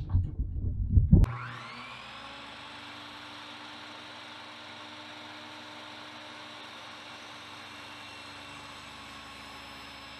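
Loud knocks and clunks for about the first second, then the Kobalt 10-inch sliding miter saw's 15-amp motor switches on with a rising whine as the blade spins up, and runs at a steady pitch.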